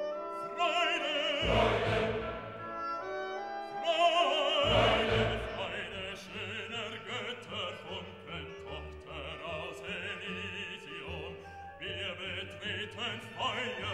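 Background classical music: an operatic singing voice with wide vibrato over an orchestra, swelling twice in the first five seconds and then settling.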